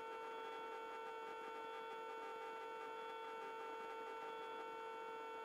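Faint, steady electrical hum with a couple of fixed pitches, the background noise of a helicopter's intercom and radio audio feed between transmissions.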